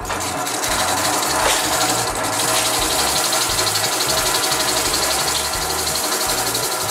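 Bench drill press running steadily, a sandpaper-wrapped tube in its chuck sanding a walnut slingshot frame: a constant motor hum under a steady gritty hiss.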